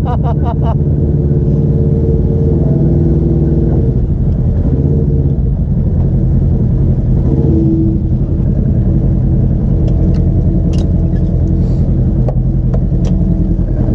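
Polaris RZR side-by-side's engine running while driving, its pitch rising and falling with the throttle, with a few short clicks in the second half.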